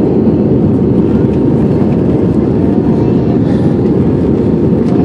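Steady, loud cabin noise of an Airbus A320 in flight, heard inside the passenger cabin: the jet engines and the rush of air over the fuselage, as a deep, even noise.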